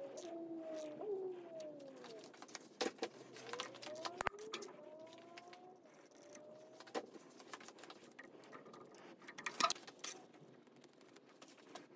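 Scattered small metallic clicks and clinks of a socket, extension and ratchet being worked on the connecting-rod bolts of an LS V8's bottom end, with a few faint rising and falling tones under them.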